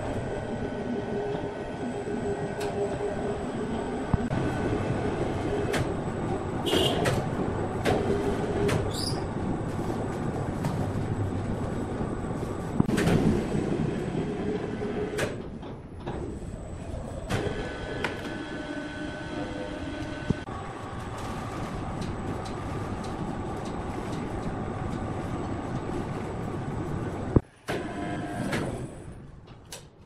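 Sawmill machinery running steadily, an overhead hoist handling heavy timber beams. It gives a continuous mechanical drone with whining tones that shift in pitch, metallic squeals and a few sharp knocks.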